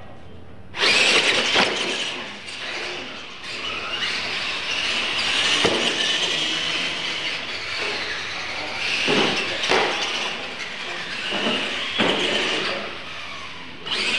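Two radio-controlled monster trucks launching and racing on a slippery concrete track: a wavering high-pitched motor whine and tyre squeal starting suddenly about a second in, with several sharp thumps as the trucks land off the ramps.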